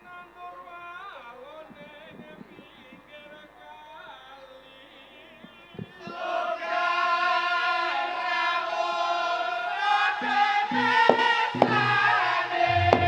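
Javanese traditional music: a single voice sings softly with a wavering pitch, then about halfway through louder singing voices and sustained instrument tones come in together, and drum strokes begin near the end.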